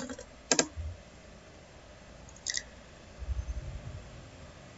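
A few sharp clicks from a computer keyboard and mouse: a pair about half a second apart, then another about two and a half seconds in, with a soft low rumble a little later.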